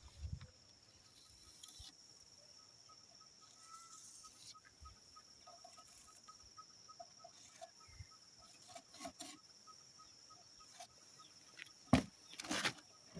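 Faint outdoor background with a steady high insect drone and a soft, evenly repeated chirp, broken by a few light knocks. A cluster of louder wooden knocks and a scrape comes near the end.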